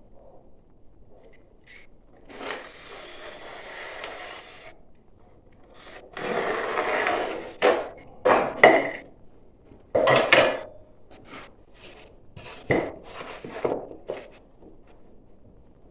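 Bursts of scraping and rubbing, with a few sharp knocks, from ceramic fiber board being worked and fitted by hand. The two longest scrapes last about two seconds each; shorter rubs and knocks come after them.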